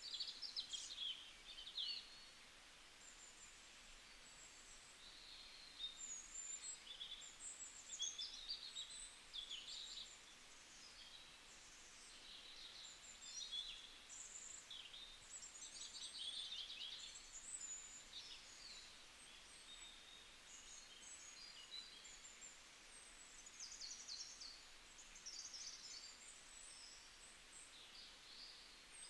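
Faint chorus of small birds chirping and trilling, with many short calls overlapping every second or so over a low steady hiss.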